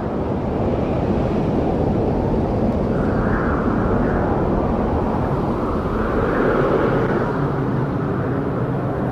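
Steady rush of strong wind and choppy water, with the low drone of a motorboat engine underneath; it swells slightly twice.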